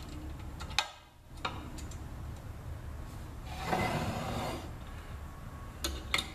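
Hand work on drill press parts: a few sharp light clicks and one scraping rustle lasting about a second, around the middle, over a low steady hum.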